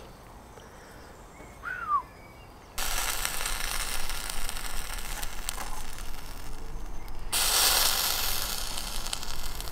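Beef burgers sizzling on the wire grill of a small bucket charcoal barbecue: a crackling hiss that starts suddenly about three seconds in and grows louder near the end. A short high chirp sounds once before it, about two seconds in.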